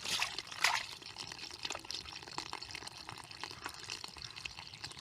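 Water splashing twice in the first second, then a steady patter of small drips and trickles.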